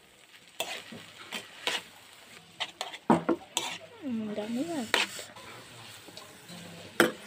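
A utensil tossing and stirring instant noodles in a frying pan, knocking and scraping against the pan at irregular moments over a low sizzle.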